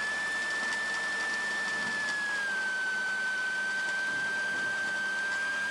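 Light aircraft's piston engine running at taxi power: a steady high tone over a hiss, the pitch easing down a little about two and a half seconds in.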